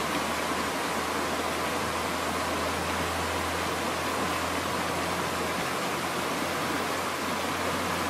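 Fast, muddy river rushing steadily over rocks, a constant roar of moving water.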